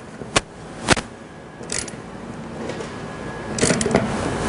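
Metal tool clicks and clinks from a half-inch ratchet and wrench tightening the nuts on a van mirror bracket: two sharp clicks in the first second, a brief scrape, then a busier run of clicking and scraping near the end.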